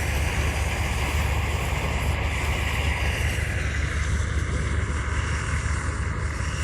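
Harvesting machinery running steadily: a deep, constant engine drone under a wide mechanical rushing noise.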